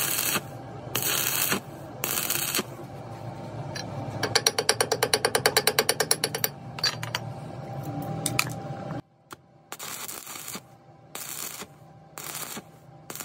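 Stick welding arc on a broken truck countershaft, crackling in short bursts that start and stop. In the middle comes a run of rapid, evenly spaced pulses, about nine a second, for about two seconds. A low hum underneath cuts off about nine seconds in.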